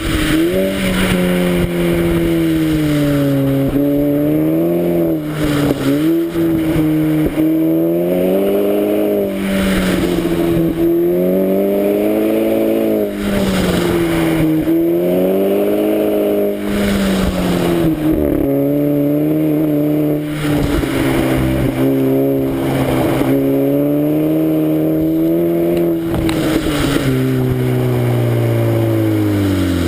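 Exhaust of a VW Golf 5 GTI Edition 30's turbocharged 2.0-litre four-cylinder, running through a Friedrich Motorsport aftermarket exhaust with a 200-cell Zeller sports catalytic converter, heard right at the tailpipe while driving. The engine note rises and falls repeatedly with the throttle, then drops away near the end as the car slows.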